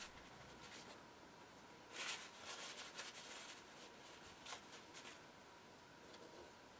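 Near silence with a few faint rustles of a paper towel and small metal parts being handled, the loudest about two seconds in, as excess thread-locking compound is wiped away.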